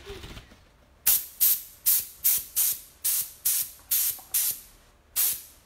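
Compressed-air gun on an air compressor, fired in short, quick blasts of hissing air, about two or three a second, blowing wet chalk paint across a lampshade. The blasts start about a second in and pause briefly near the end before starting again.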